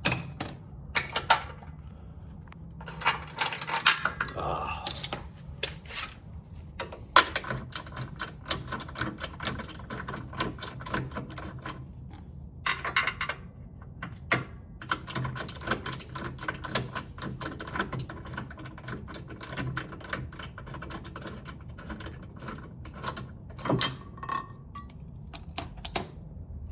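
Hand wrench working a weight-plate bolt on a mini track loader: a long run of rapid metallic clicks and clinks, with a few louder knocks, over a low steady hum.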